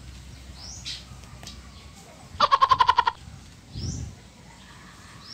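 A short animal call made of about ten rapid pulses, lasting under a second, about halfway through; a few brief high chirps of small birds come before and after it.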